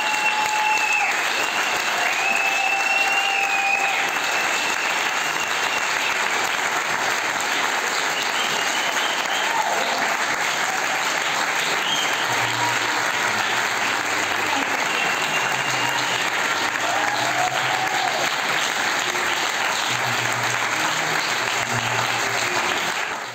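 Large audience applauding: a long, steady round of clapping.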